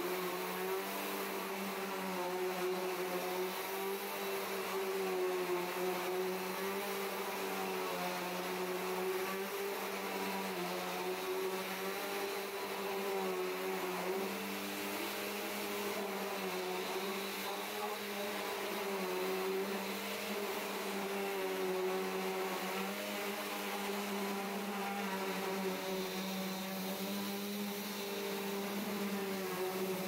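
2005 Bissell CleanView Revolution Deluxe upright vacuum cleaner running steadily while it is pushed back and forth over a rug, its motor hum wavering slightly in pitch with each stroke.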